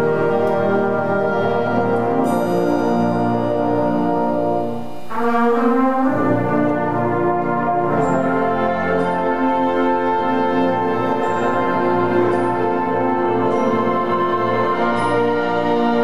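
Concert band playing slow, sustained chords, with brass to the fore. About five seconds in, the sound briefly dips and the harmony slides into a new chord, then swells back up.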